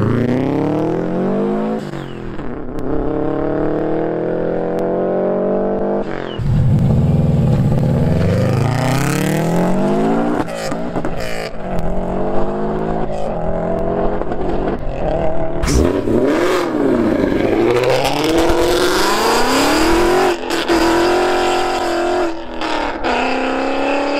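Cars driven hard away one after another, starting with a silver Subaru Forester. The engines rev up through the gears, the pitch climbing and dropping back at each shift, with a couple of sharp cracks in the second half.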